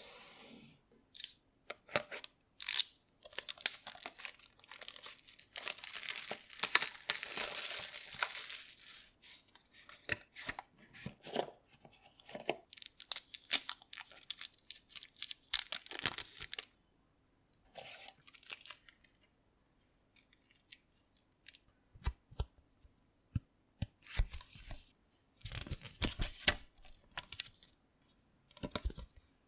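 Smartwatch packaging being opened by hand: wrapping tearing and crinkling, with a stretch of dense rustling in the first third, then scattered clicks and handling noises of the box and its contents.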